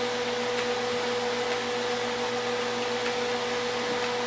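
Steady electric motor hum over an even whirring hiss from a running fan-type appliance, with a few faint clicks.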